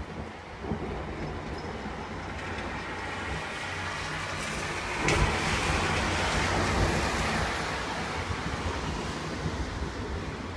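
Thunder rumbling, with a sharp crack about five seconds in that swells into a louder roll and slowly dies away.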